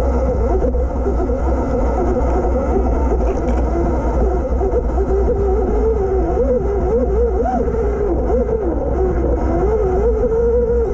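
Dirt bike ride on a rough trail: a motor's pitch rises and falls with the throttle and speed over a heavy, steady low rumble of wind and trail noise on the riding camera's microphone.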